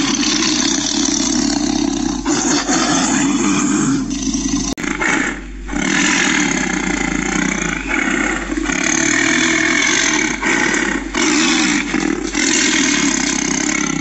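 Tiger roaring and growling at close range: a run of loud, long roars broken by short pauses.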